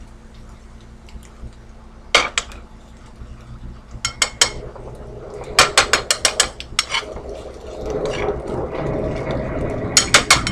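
A spatula clicking and scraping against a nonstick skillet as scrambled egg and sautéed onion are stirred: sharp ticks in quick clusters starting about two seconds in, with a hiss building near the end.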